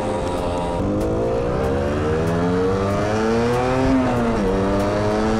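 Rieju RS3 NKD 50cc two-stroke motorcycle engine accelerating under way. Its pitch climbs steadily, then falls sharply about four seconds in and starts climbing again, the rev drop of a gear change, with a smaller dip about a second in.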